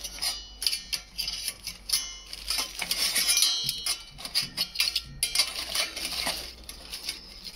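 Stainless steel camp cookware clinking and clattering: a Kelly Kettle hobo stove being lifted with a metal gripper handle and knocked against the pots, with short metallic rings after some of the knocks.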